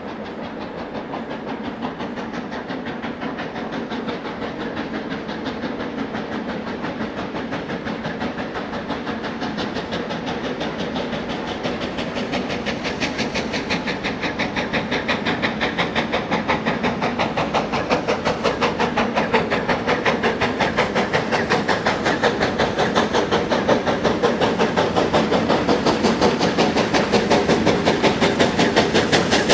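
Steam locomotive working a train, its exhaust chuffing in a steady rhythm over a hiss of steam, growing steadily louder as it approaches.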